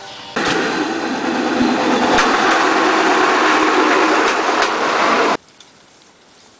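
A bamboo train (norry) running along the rails: a small engine and the wheels rattling over the track make a loud, dense clatter with a few sharp clacks. It starts and stops abruptly, about five seconds long, and a much quieter background follows.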